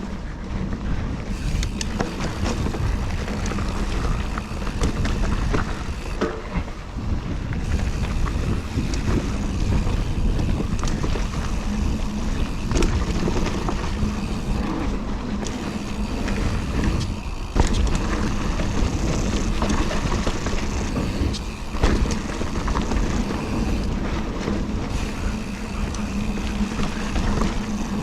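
Mountain bike riding fast down a dirt jump trail: tyres rolling on dirt, with the chain and bike rattling and frequent knocks from bumps and landings, and wind rushing over the microphone.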